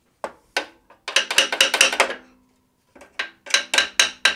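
Quick runs of sharp metallic clicks and taps from steel parts being worked together: the rack-forward kit plate being brought into line on a Nissan S13 subframe. A couple of single taps come first, then a dense flurry about a second in and another run of taps near the end.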